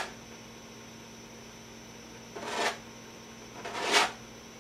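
Palette knife scraped across a painted canvas in two strokes, about two and a half and four seconds in, each building and then stopping short. A faint steady hum lies underneath.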